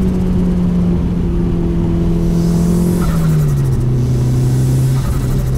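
Tuned Mitsubishi Lancer Evolution VI GSR's turbocharged 2.0-litre four-cylinder engine running under way, heard from inside the cabin. Its note sinks slowly, drops quickly to a lower pitch about three seconds in, then holds steady.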